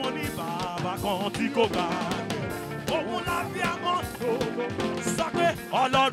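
A man leading a gospel praise song into a microphone, his voice wavering up and down in pitch, over live drums and band.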